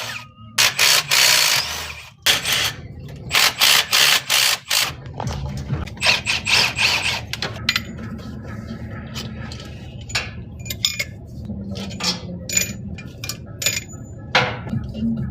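Several short bursts of a power ratchet in the first five seconds, then scattered light metallic clinks and scrapes of tools and engine parts.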